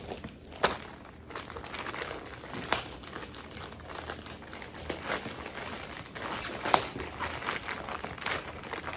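Mailer packaging crinkling and rustling as it is handled, with a few sharper crackles.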